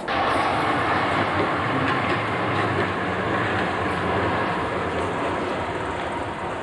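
A tram passing along the street: steady rolling noise of steel wheels on rails, which starts abruptly and eases slightly toward the end.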